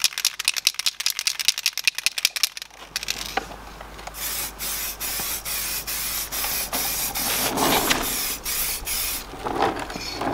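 Aerosol spray-paint can being shaken, its mixing ball rattling fast, for the first two and a half seconds. Then, from about four seconds in, a run of short hissing bursts of spray as the caliper gets a light coat.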